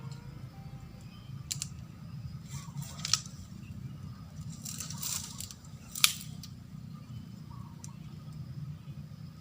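Handling noises: scattered sharp clicks and rustles, the loudest click about six seconds in, over a steady low hum.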